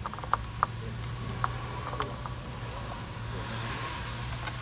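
A few sharp, separate clicks and taps of hand tools and parts being handled during ignition coil installation, over a steady low hum. A soft rustling hiss comes near the end.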